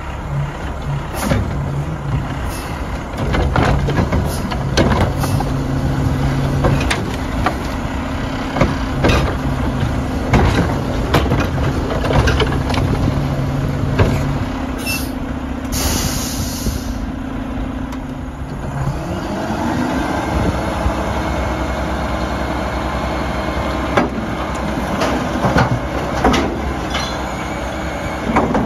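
Mack LR garbage truck with a Heil Odyssey Curotto-Can body at work: the diesel engine runs with a steady hydraulic whine and repeated metal clanks and bangs. A sharp air-brake hiss comes a little past halfway, then a rising whine as the engine revs up about two-thirds through.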